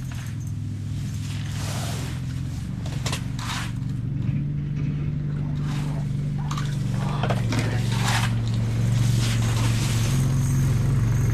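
A steady low motor hum that grows louder toward the end, with scattered scrapes and clicks over it.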